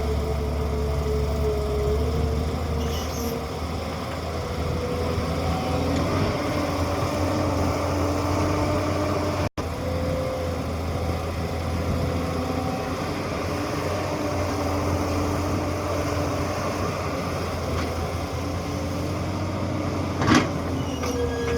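Tata Hitachi 200EX excavator's diesel engine running steadily as the machine works, its hum shifting slightly in pitch now and then. The sound drops out for an instant near the middle, and there is a sharp knock near the end.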